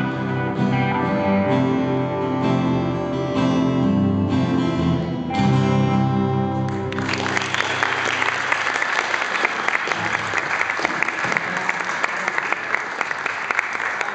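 Live band led by acoustic guitar plays the last bars of a song and ends on a held chord about seven seconds in; the audience then breaks into applause.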